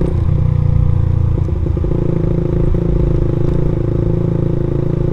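Suzuki Satria F150 fuel-injected single-cylinder engine running steadily through an aftermarket racing exhaust while cruising.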